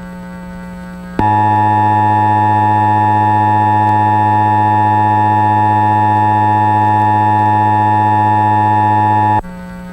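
Emergency Alert System attention signal: a loud, steady two-tone electronic alarm that starts about a second in, holds for about eight seconds without changing, and cuts off suddenly. A low steady buzz is heard before and after it.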